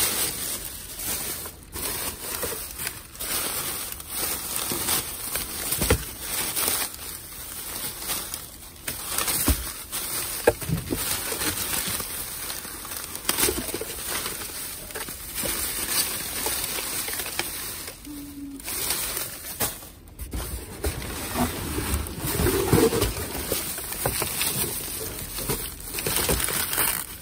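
Trash bags and discarded items rustling, crinkling and knocking as they are rummaged through in a dumpster, with many scattered clicks and thuds.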